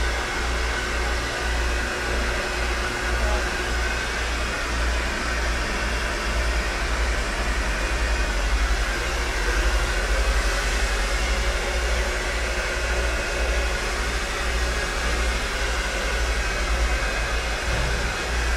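A salon hair appliance running, giving a steady electric whir over a strong low hum.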